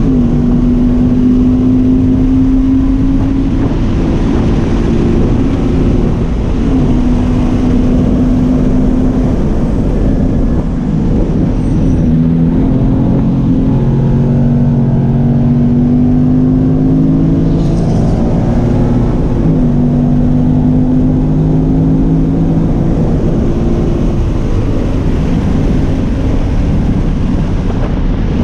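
Sports car's flat-four engine heard from inside the cabin under hard acceleration on a track lap, its pitch climbing through each gear and dropping back several times at shifts and braking for corners, over steady tyre and road noise.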